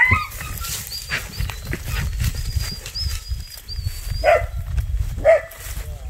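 A dog barks twice, two short calls about a second apart, over a steady low rumble.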